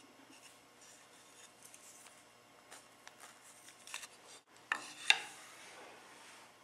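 Light handling noises: scattered small clicks and rubbing, with two sharper clicks about five seconds in, the second one the loudest.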